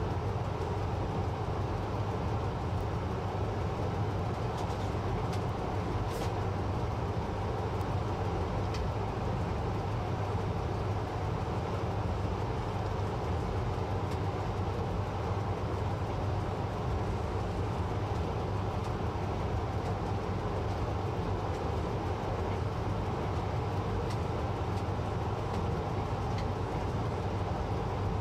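Train running steadily through a tunnel: a continuous low rumble from the wheels and rails, with a few faint clicks.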